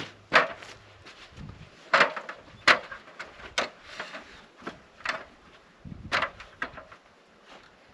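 Irregular sharp knocks and clunks as a heavy peeled log section is carried up an aluminium stepladder and set on a log wall: boots on the ladder rungs and wood bumping on wood, with a dull thump about six seconds in.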